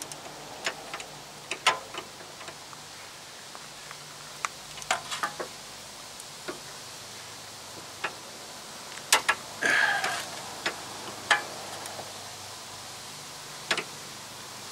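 Ratcheting torque wrench clicking in short, irregular bursts as a rear brake caliper bracket bolt is run down toward 46 foot-pounds, the loudest clicks a close pair about nine seconds in.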